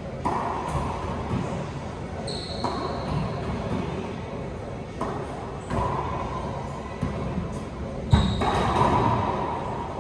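Racquetball in play: sharp smacks of the ball off racquets, the walls and the hardwood floor, ringing in the enclosed court, about half a dozen hits with the loudest near the end.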